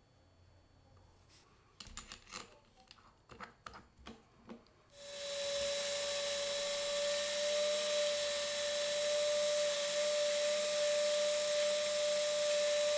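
A few light clicks and taps, then a TACKLIFE cordless drill starts about five seconds in and runs at one steady speed with a steady hum. It spins a small wooden disc on a mandrel against sandpaper held by hand, adding the hiss of sanding.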